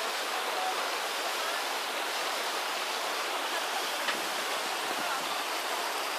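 Mountain stream flowing over boulders: a steady, even rush of water.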